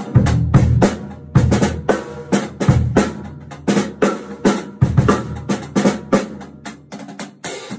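Drum kit played with sticks in a groove of kick drum, snare and a hi-hat muffled by a towel draped over it, so the hi-hat strokes lack their usual loud chick and stick sound. The playing stops near the end.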